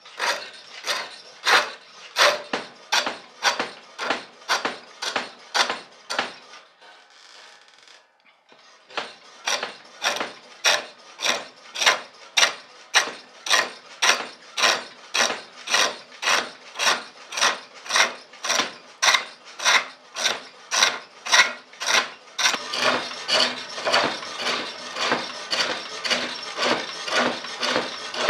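Spring pole lathe turning a wooden leg, with the chisel cutting the spinning wood in rhythmic strokes about two a second as the treadle drives the work back and forth, tapering the end of the leg. There is a short softer lull early on, and near the end a steadier scraping sounds between the strokes.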